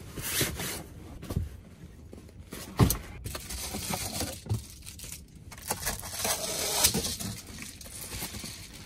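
Bedding and camping gear being handled and packed away: irregular rustling and scraping, with a knock about three seconds in and another near seven seconds.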